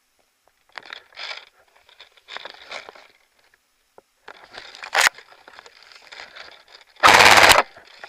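Airsoft electric rifle firing a short full-auto burst of about half a second near the end, a rapid even rattle of shots. Before it come scattered rustling and shuffling noises and one sharp click about five seconds in.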